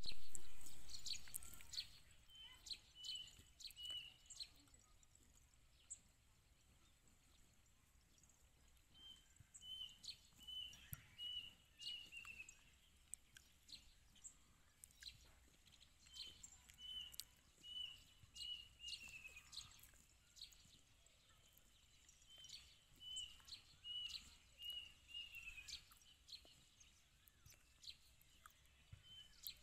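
A bird singing a short phrase of five or six even, high notes ending in a falling note, repeated about every seven seconds, over scattered crisp snaps of a cow cropping grass close by. A bump at the very start.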